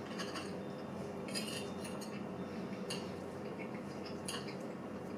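Metal fork clinking and scraping on a dinner plate as food is picked up: a handful of separate short taps, over a steady faint hum.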